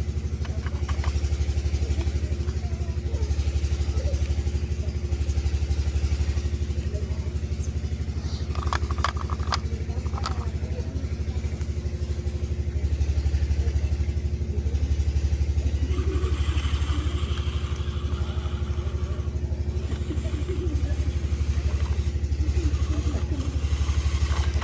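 Engine running steadily at low speed with an even low throb, and a few sharp clicks about nine to ten seconds in.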